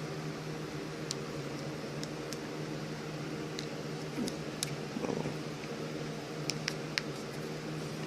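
Steady mechanical hum in a small room, with about eight light clicks and taps scattered through it, a few of them in quick succession near the end.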